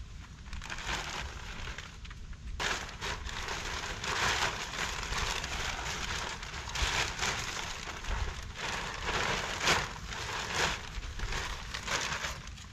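Plastic sheeting rustling and crinkling irregularly as it is unfolded and spread out by hand. It gets louder from about two and a half seconds in.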